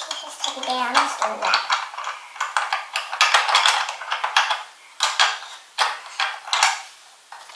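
Hard plastic Playmobil toy pieces clicking and clattering as they are handled and fitted inside the plastic fuselage of a toy jet, a run of quick irregular clicks and knocks.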